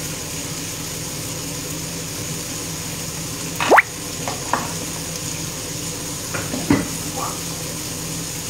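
Steady sizzling of octopus, zucchini and cherry tomatoes in a frying pan on a lowered gas flame. A short rising squeak comes about three and a half seconds in, and a few light knocks of a knife on a wooden chopping board follow.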